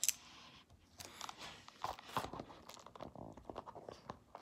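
Quiet scattered clicks and crinkles of a plastic Blu-ray case and its cardboard slipcover being handled while a sticker is picked off with the fingertips, with a short scraping sound at the start.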